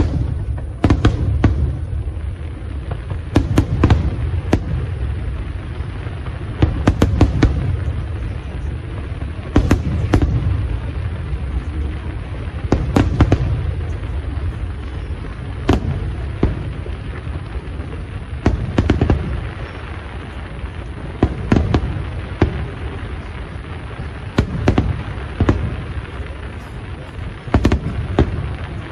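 Aerial fireworks shells bursting over and over, one every second or two, each a sharp crack with a low rolling boom after it.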